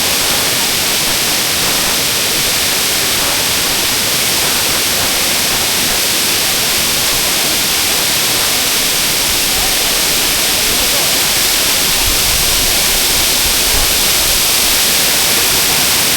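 Tall waterfall pouring down, a loud steady rush of falling water.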